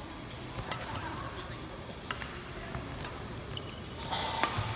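Badminton rally: sharp racket strikes on the shuttlecock, several of them roughly a second apart, with a louder noisy burst near the end.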